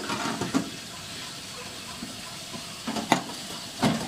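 Pliers gripping and prying up the cut lid of a metal oil tin: a few sharp metallic clicks and clanks, about half a second in, around three seconds in and near the end as the lid lifts, over a steady hiss.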